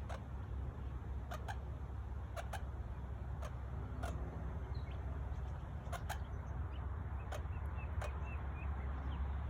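A few faint, short bird chirps over a steady low rumble, with scattered sharp clicks at irregular intervals.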